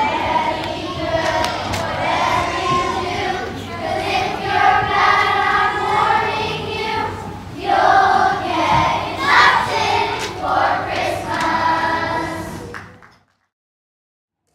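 Children's choir singing together; the singing fades out to silence near the end.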